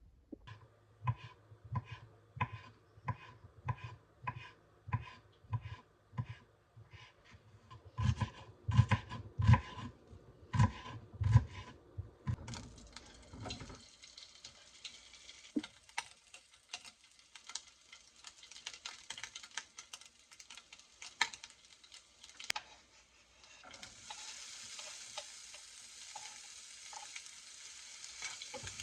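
Steady knocking, about one and a half knocks a second and heaviest near the middle, then food sizzling in a frying pan. The sizzle starts about halfway through and grows louder near the end.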